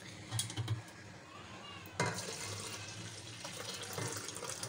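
Milk pouring in a steady stream into a steel pot of rice soaked in water, starting suddenly about two seconds in, after a few soft knocks of handling.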